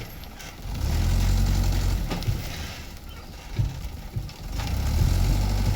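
Heavy diesel engine of a road-works machine running with a low hum. It picks up about a second in, eases back after two seconds, and picks up again near the end as the machine is worked.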